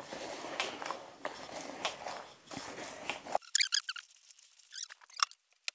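Minced meat being kneaded by hand in a bowl, a wet squelching and crackling. About three and a half seconds in it cuts off abruptly and a few short high-pitched squeaks follow.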